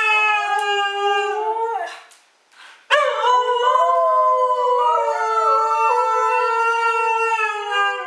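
Husky howling in long, drawn-out "talking" howls whose pitch bends up and down: one howl ends about two seconds in, a short breath follows, and a second long howl starts about three seconds in and is held to the end.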